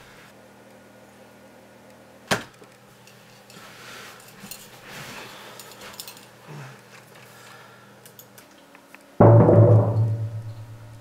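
Quiet room tone broken by a single sharp click about two seconds in, then near the end a sudden loud low boom, a horror-film sting sound effect, that fades away over about a second and a half.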